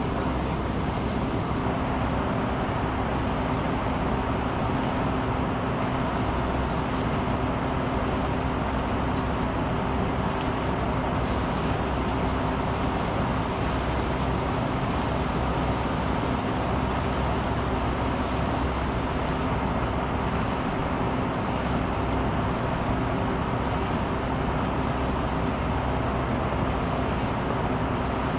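A motor running steadily with an unchanging hum.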